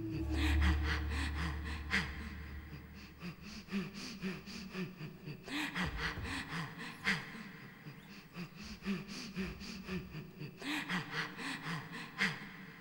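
Rhythmic gasping and panting breaths, short sounds repeating several times a second, with a sharper gasp about every five seconds, over a low drone that fades out in the first few seconds.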